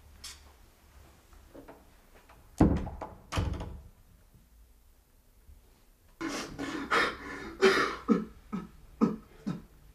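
A door shuts with two heavy thuds about two and a half seconds in. From about six seconds in comes a quick run of about eight short, breathy vocal sounds.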